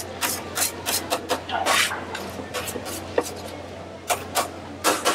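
An irregular run of quick scraping and knocking strokes, a few of them drawn out into longer scrapes, with a pause in the middle.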